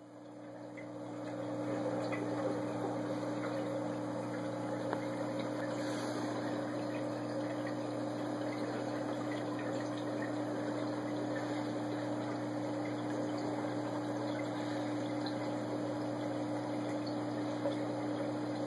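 Aquarium pump running with a steady hum over the rush and faint ticking of moving water. It swells over the first two seconds and then holds steady.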